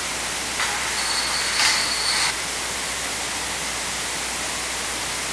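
Steady hiss of recording noise, with a short louder rush of noise starting about half a second in and stopping about two seconds in.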